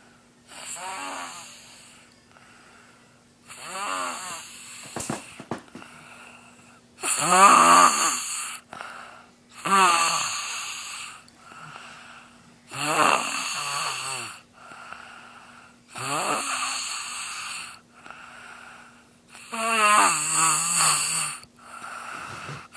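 A boy snoring loudly in deep sleep, with a long, rasping snore on each breath about every three seconds.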